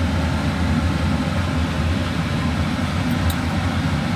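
A steady low mechanical hum, even in level throughout, with a faint tick about three seconds in.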